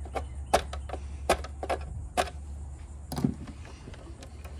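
Small plastic clicks and taps of wires and a terminal connector being handled and moved inside an electrical control box: a handful of sharp clicks over the first two seconds or so, then a duller knock about three seconds in.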